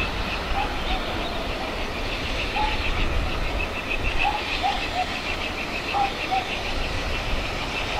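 Steam locomotive approaching along the line with a low, steady rumble, birds calling over it with short chirps.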